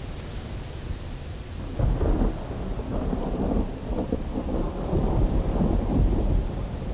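Atonal noise track made in FL Studio: a dense low rumble with a rain-like hiss, swelling into irregular louder surges from about two seconds in.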